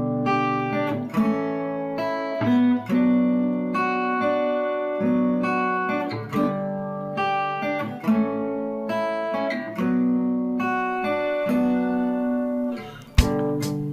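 Music led by acoustic guitar playing sustained chords that change about once a second, with a brief drop and a sharp hit near the end.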